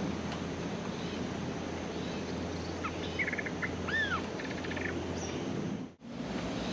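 Bulbul calling: a short burst of quick chattering notes and an arched, rising-then-falling whistle about halfway through, over steady wind and outdoor ambience. The ambience briefly drops out near the end.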